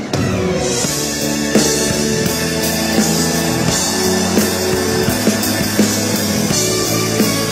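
Music with drums, guitar and sustained chords over a steady beat.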